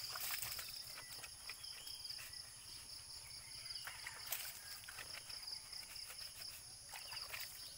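Scattered splashes and drips of water as a motorcycle is washed by hand with a dipper and cloth, over a steady high-pitched insect buzz.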